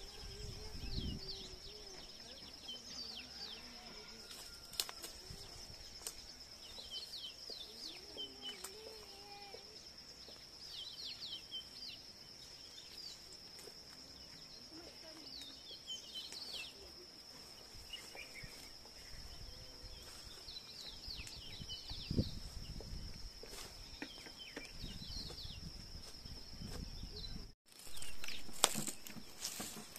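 Outdoor rural ambience: small birds chirping and twittering over a steady high-pitched whine, with occasional low rumbles. It breaks off in a brief gap near the end.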